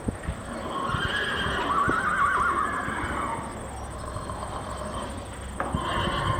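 A horse whinnying: one long, wavering call starting about a second in, and another starting near the end.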